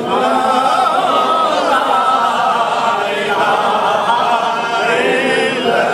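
A man's voice singing an Urdu naat unaccompanied, drawing out long, wavering notes.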